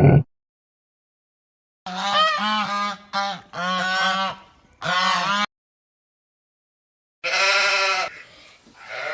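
A run of honking animal calls, several short pitched calls over about four seconds, then a pause and another call near the end.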